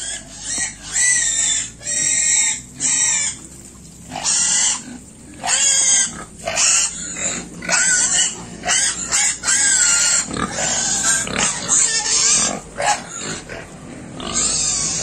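Piglets squealing: a long series of short, loud, high-pitched squeals, one after another with brief gaps.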